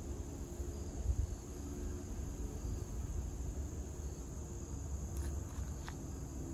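Steady high-pitched insect chorus in woodland, with a low rumble underneath and a few faint ticks near the end.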